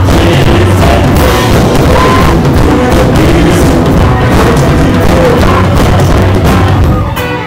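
Live rock band playing loud, recorded from the audience. The music drops away in level near the end.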